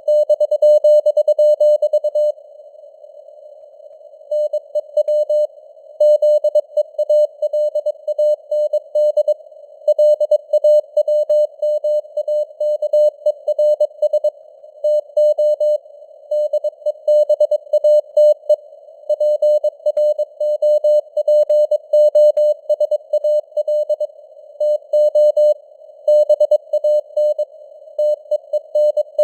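Morse code at 22 words per minute: a single steady tone keyed on and off in dots and dashes, with short gaps between letters and a pause of about two seconds starting about two seconds in. The tone sits in a narrow band of hiss, simulated radio noise like a CW signal heard on a shortwave receiver.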